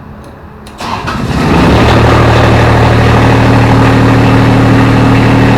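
Kubota diesel engine of a Grasshopper mower cranking and catching about a second in, firing right up and then running steadily.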